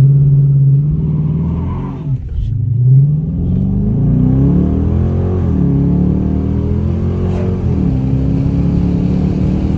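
Dodge Charger Daytona R/T engine held at launch-control revs, then launching: its pitch rises twice with a sharp drop between, and it settles into a steady high rev near the end. The driver says the launch turned into a burnout, the tyres spinning.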